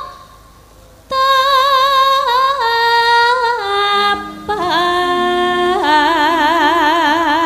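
A Javanese sinden (female gamelan singer) singing through a microphone: long held notes with a wide, even vibrato, the melody stepping downward. The voice breaks off for about a second near the start, and a lower held note joins about four seconds in.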